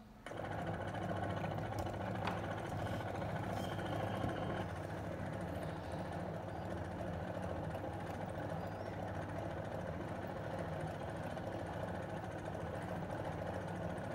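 AC servo motor, coupled to a small DC machine used as a generator, running steadily at around 820–850 rpm with an even electrical hum. The hum comes in suddenly just after the start, as the control voltage is raised from zero.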